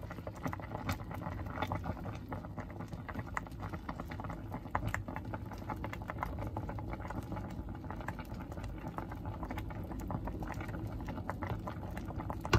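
Pot of sinigang with a fish head at a rolling boil, the broth frothy from taro, bubbling steadily with many small pops. A single louder knock comes right at the end.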